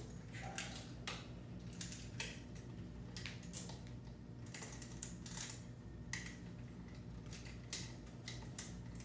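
Irregular small clicks and taps, about two a second, from hands and tools working on the pylon and foot of a prosthetic leg as it is adjusted.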